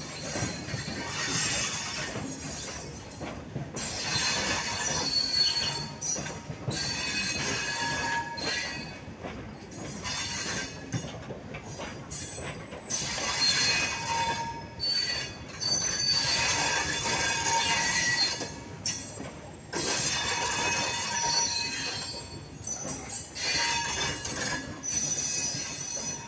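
Open-top steel freight wagons of a goods train rolling slowly past at under 20 km/h. The steel wheels squeal and screech against the rails, with shifting high-pitched tones that swell and fade over a steady rumble.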